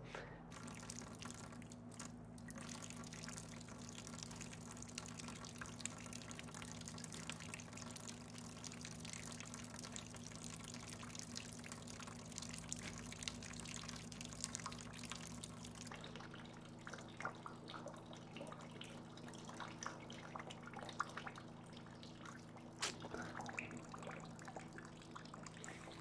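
Faint dripping and dribbling of water from a small valve into a plastic bucket, many small drips, over a steady low hum.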